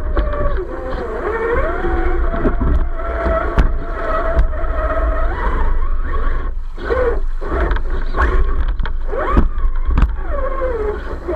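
Electric motor and gearbox of an RC crawler whining as it drives, the pitch rising and falling with the throttle and dropping out briefly partway through, with a few sharp knocks from the truck working over terrain.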